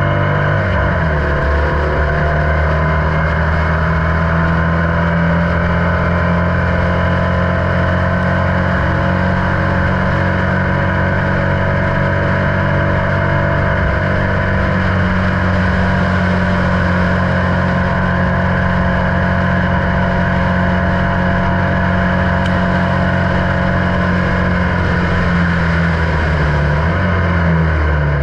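Formula Vee race car's air-cooled Volkswagen flat-four engine running flat out from the open cockpit, its pitch climbing slowly down the straight, then falling in the last second or so as the car slows for the corner.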